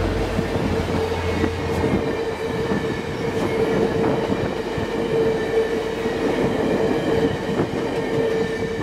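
VIA Rail passenger train passing close by at speed: stainless-steel cars rolling past with wheel-on-rail noise and a steady whining tone. The low rumble of the passing diesel locomotives fades about two seconds in.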